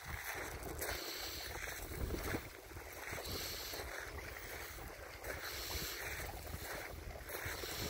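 Wind buffeting the microphone in uneven gusts, over the soft wash of small wind-driven waves lapping at the shoreline.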